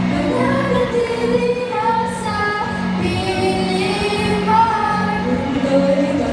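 Teenage students, mostly girls, singing a pop song together into microphones over a live band of electric guitar, bass guitar, keyboard and violins.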